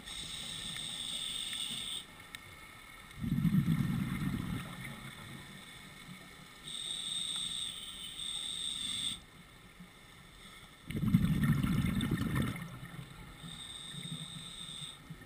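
Scuba diver breathing through a regulator underwater: three hissing inhalations of about two seconds each, taking turns with two louder, lower bursts of exhaled bubbles.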